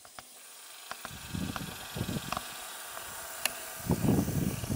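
Rustling and crunching in dry leaf litter and brush as someone steps in close with the camera, with sharp twig-like clicks. A steady high hiss sits behind it.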